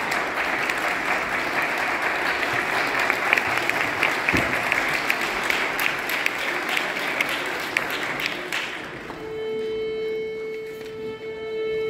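Audience applauding, fading out about nine seconds in. Then a string orchestra's single steady held tuning note, the A given before playing.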